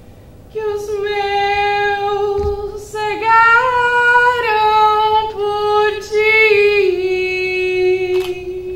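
A woman singing alone in long, held notes, in several phrases with short breaks. The pitch climbs in the middle and settles on a lower held note near the end.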